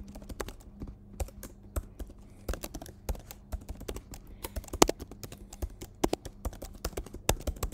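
Typing on a computer keyboard: irregular keystroke clicks, several a second, over a faint steady low hum.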